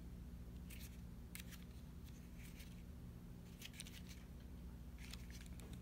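Plastic Ford smart key fob being handled and turned over in the hand: several faint, short clicks and scrapes at irregular moments, over a steady low hum.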